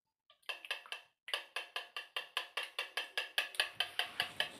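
Wire balloon whisk beating an egg-and-milk mixture in a bowl, its wires clicking against the bowl in a quick steady rhythm of about six strokes a second, starting about half a second in.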